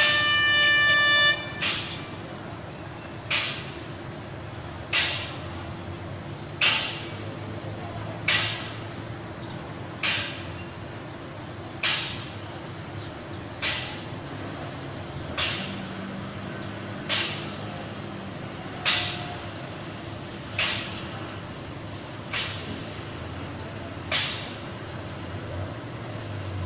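An approaching electric train sounds its horn for about two seconds at the start, one steady chord. After that a sharp click repeats about every 1.7 seconds over a low steady hum.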